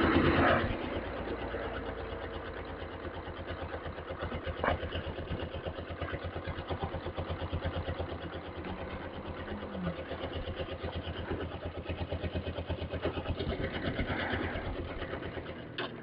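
Suzuki GS500E's air-cooled parallel-twin engine running at low speed as the motorcycle rolls slowly, a steady pulsing exhaust beat.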